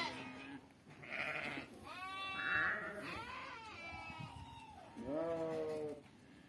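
Goats bleating several times, the calls overlapping, with one deeper bleat about five seconds in.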